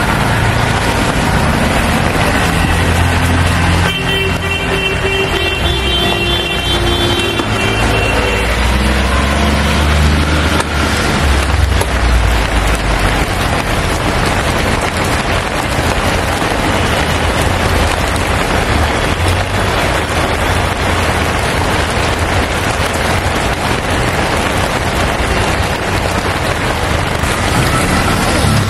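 Steady road traffic noise with the low rumble of passing vehicle engines, and a vehicle horn sounding for a few seconds about four seconds in.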